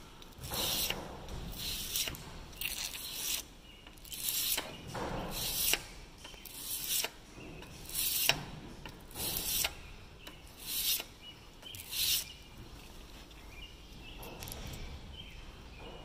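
A Massey Ferguson 1734 round baler's steel twine knife is rubbed back and forth on abrasive paper on a steel bench. It makes rasping strokes about one to two a second, polishing the paint off and dressing the cutting edge. The strokes stop about three-quarters of the way through.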